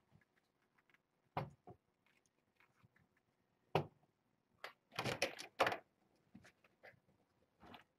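Scattered knocks, clicks and clatter of objects being handled, with single knocks about one and a half and four seconds in and a busier cluster about five seconds in.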